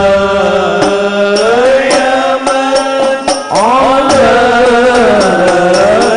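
Men singing an Arabic sholawat together in unison, in long held, sliding melodic lines, over a steady percussion beat. The phrase breaks off about three and a half seconds in, and a new line begins with a rising glide.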